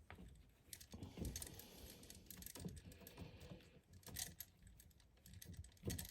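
Small irregular clicks, knocks and rustling of hands twisting a twist-on wire connector onto electrical wires, with a few louder knocks.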